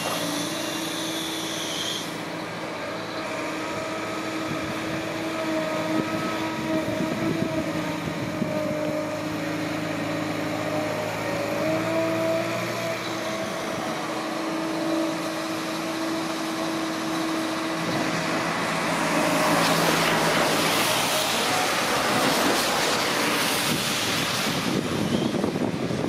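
A Liebherr material handler's diesel engine and hydraulics run steadily with a droning hum. Near the end a rushing noise swells over it for several seconds.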